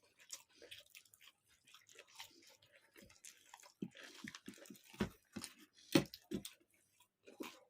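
Close chewing and wet mouth smacking of a person eating a mix of chowmein, pasta, egg roll and mughlai paratha, with a few louder smacks about five to six and a half seconds in.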